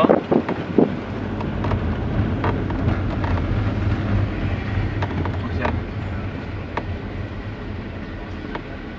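Engine and road noise inside the cabin of a moving Mitsubishi Lancer, a steady low drone that eases off over the last few seconds.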